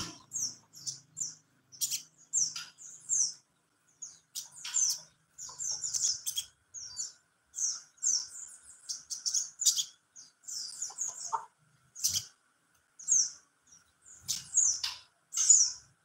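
Small caged songbirds, a sogon and a female white-eye (pleci) sharing the cage, chirping: quick high chirps and short twittering phrases, several every second.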